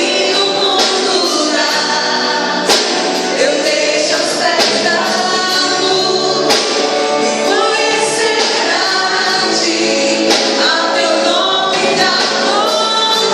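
Christian gospel song: several voices singing together, choir-style, over band accompaniment with drum hits.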